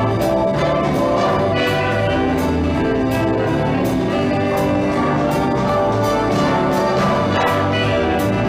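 Swing-style big band music with brass and a steady beat.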